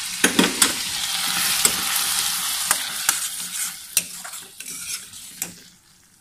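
Thick apple halwa of apple pulp, sugar and ghee bubbling and sizzling in a pan as it is stirred with a ladle, which knocks against the pan now and then. The sizzling dies away near the end.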